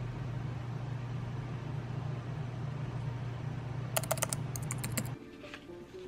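A steady low hum, then about four seconds in, a quick run of sharp clicks like keystrokes on a keyboard. The hum cuts off just after, and soft plucked-string background music begins near the end.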